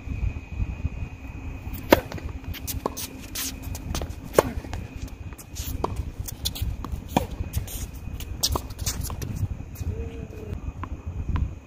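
Tennis rally: sharp pops of racket strings striking the ball and of ball bounces on a hard court, coming every second or so. The loudest are about two seconds and four and a half seconds in, over a steady low rumble.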